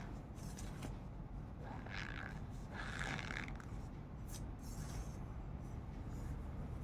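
Cornstarch being pressed and squeezed, giving short squeaky crunches, the clearest about two and three seconds in, with a few small clicks between.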